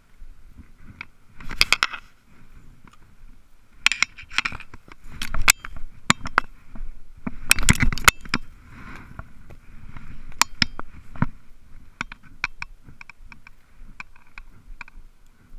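Close handling noise of fishing gear and dry brush: a string of clicks, scrapes and rustles, with the loudest bursts about two, four, five and a half and eight seconds in.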